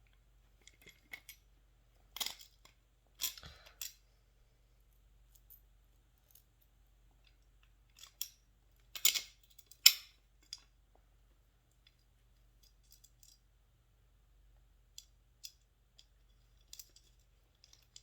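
Scattered metal clicks and clinks of bolts, washers and nuts being handled and fitted to a chicken plucker's frame during assembly, with the sharpest knocks about two, three and nine to ten seconds in.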